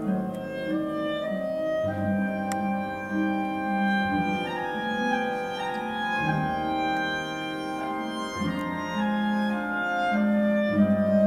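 Classical ballet music: a melody of long held notes over sustained chords.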